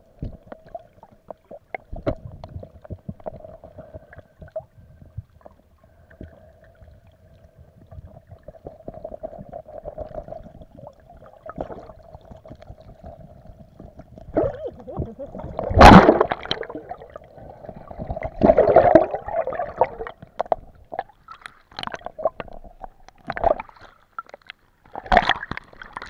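Muffled underwater sound picked up by a camera held under water: crackling clicks, gurgling and sloshing over a faint steady hum, with louder bursts of water noise about two-thirds of the way through.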